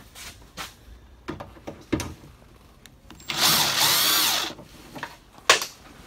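Power drill-driver running for about a second, spinning a 10 mm nut off a boot-lid stud, its pitch rising and falling with the trigger. A few light clicks and knocks of handling come before and after.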